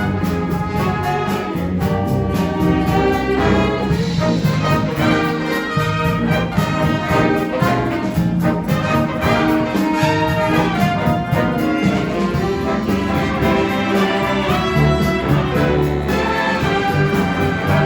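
School jazz band playing a full ensemble passage, with saxophones and brass over a bass and keyboard rhythm section, loud and unbroken.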